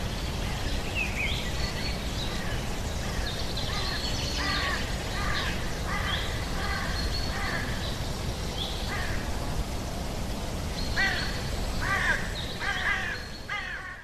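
Forest ambience sound effect: birds calling over a steady low background rumble, the calls coming in clusters, with a busy stretch near the end before the track drops away.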